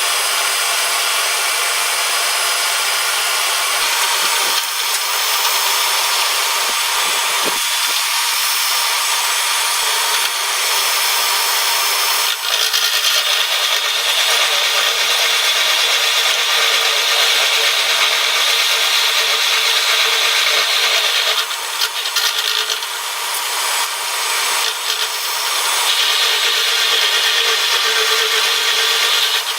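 Milling machine cutter taking a pass across the weld-built-up steel of a mill vise: a steady, loud cutting noise that turns shriller about twelve seconds in, eases off briefly a little past twenty seconds, then comes back.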